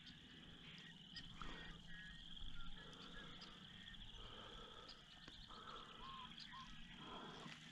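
Faint outdoor ambience close to near silence: a steady high trilling chorus of distant calling animals, with a couple of short calls about six seconds in and a few light knocks.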